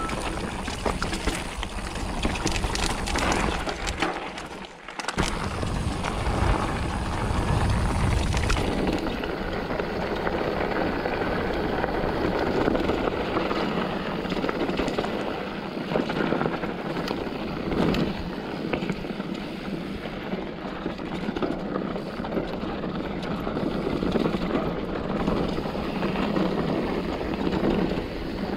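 A 2021 Polygon Siskiu N7 mountain bike being ridden along a dirt trail: knobby tyres rolling over the ground and the bike rattling and knocking over bumps and roots, with frequent sharp jolts.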